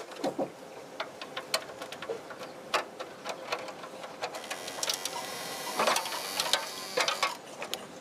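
Irregular sharp clicks and knocks of a kitchen chimney hood's parts being worked on, sped up to double speed, with a short stretch of hiss about five seconds in.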